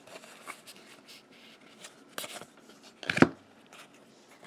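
Magic: The Gathering trading cards handled and slid through in the hands: faint card-on-card rustles and small clicks, with one sharper tap of the card stack about three seconds in.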